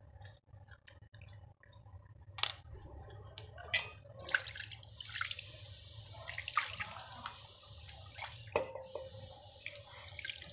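Water poured from a plastic mug over a freshly scaled fish held in the hand, splashing and running off, steady from about four seconds in with a brief break and a thump about two-thirds through. Before the pouring, a few sharp clicks and scrapes of a knife scraping the fish's scales.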